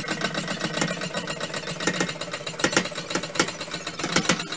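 Foot pump of a Clarke CML3 hydraulic motorcycle lift table being worked, the table rising: a run of irregularly spaced sharp clicks and knocks from the pedal and pump.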